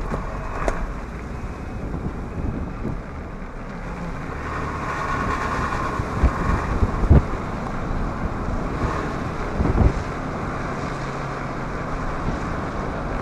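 Wind rushing and buffeting the microphone over the road noise of a vehicle driving, with a couple of sharp gusty thumps around seven and ten seconds in.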